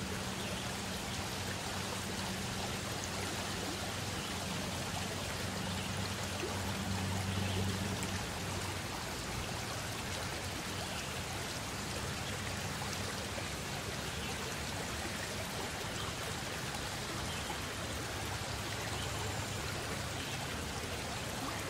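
Steady rushing noise like running water, with a low hum underneath that fades after about eight seconds.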